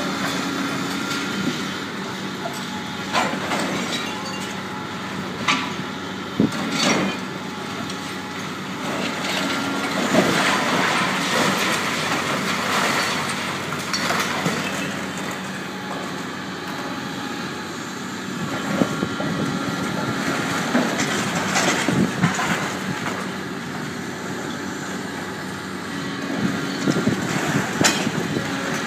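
Doosan DX300LC tracked excavator's diesel engine running steadily under load while it tears and crushes metal scrap, with scraping, squealing metal and several sharp clanks.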